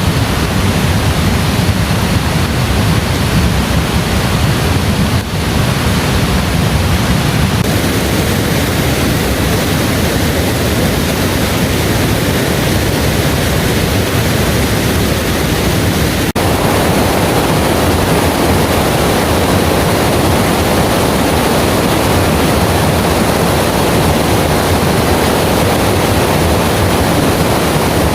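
Heavy rain pouring in a loud, steady hiss. About sixteen seconds in, the sound changes abruptly and grows fuller in the middle range.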